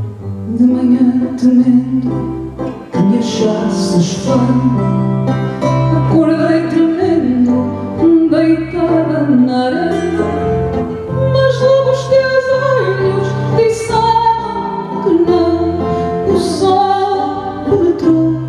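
A woman singing fado in Portuguese, her melody gliding and held on long notes, over a Portuguese guitar and classical guitars plucking the accompaniment with a steady bass line.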